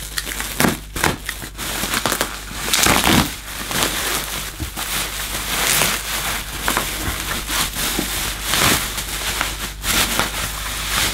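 Bubble wrap being handled and pulled open by hand, crinkling and rustling with irregular crackles throughout.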